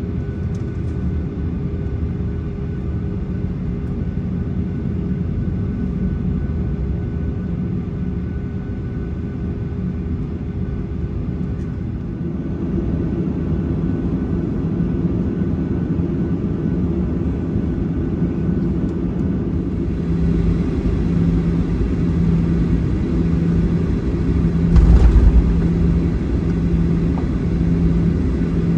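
Cabin noise of a Boeing 737-800 taxiing, heard at the window seat: a steady low rumble and hum from its CFM56 engines at taxi power and the airframe rolling along the taxiway. It grows a little louder about halfway, a low hum pulses about once a second in the last part, and there is one low thump about three-quarters of the way through.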